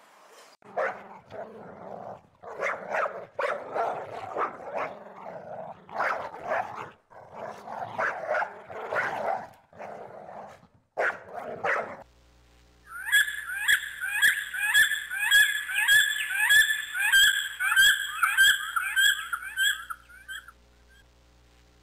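A husky puppy giving a string of short cries and barks for about twelve seconds. Then a bald eagle calls in a fast run of high, thin, piping notes, each sliding down, about two a second.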